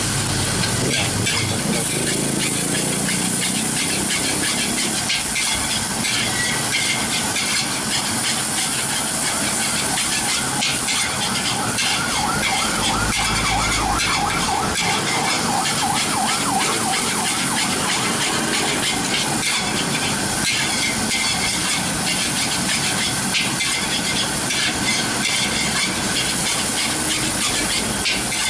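Fried rice with squid frying in a large wok: a steady sizzle, with a metal spatula scraping and clanking against the wok in quick, repeated strokes as the rice is tossed.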